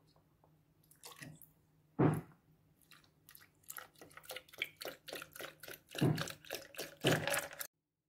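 Milk poured from a plastic bottle onto ice cubes in a blender cup, splashing and glugging in quick irregular bursts that stop abruptly near the end. A single knock comes about two seconds in.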